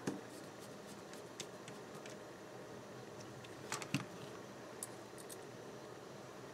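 Faint handling of a small folding knife and screwdriver on a rubber work mat: a few light clicks and taps, the loudest a click and soft thump about four seconds in as the knife is laid down.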